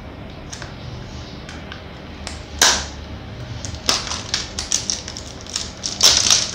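Clear plastic shrink-wrap being picked at and peeled off a small cardboard cosmetics box, crackling and crinkling. A few sharp crackles come first, then dense rapid crinkling from a little past halfway as the film comes away.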